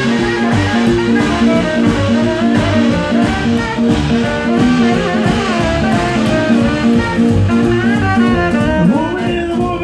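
Live swing band playing an up-tempo jump-blues number: saxophone out front over trombone, keyboard, upright bass and a steady drum beat.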